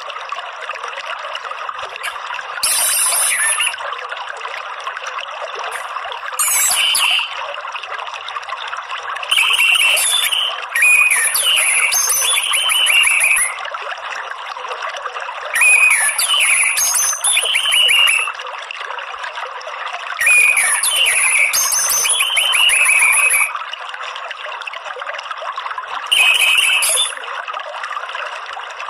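Orange-headed thrush giving short chattering 'ngeriwik' call phrases, about eight in all, each a second or two long and a few seconds apart, over a steady trickle of running water.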